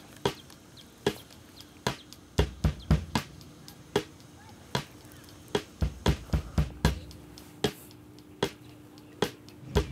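A string of sharp, irregular knocks and clicks, about twenty of them, over a faint steady low hum.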